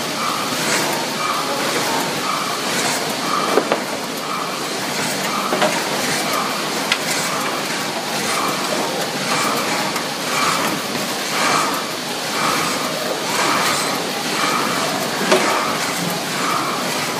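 Vertical packaging machine with a multihead weigher running and bagging product. Its cycle repeats about twice a second, with light clicks over steady machine noise.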